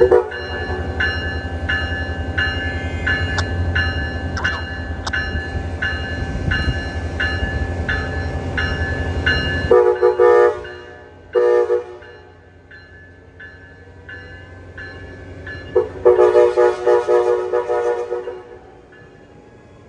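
A train passing with a loud low rumble while a warning bell rings about twice a second. The rumble then cuts off abruptly, followed by a series of Amtrak Pacific Surfiner locomotive multi-chime horn blasts. Three short blasts come first, then a brief blast and a longer one of about two seconds near the end.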